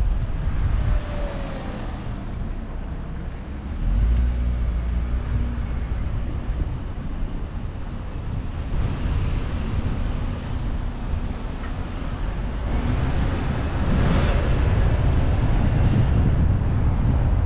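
A car driving on the road: a steady low rumble of engine and tyres with wind noise. A hiss swells about fourteen seconds in.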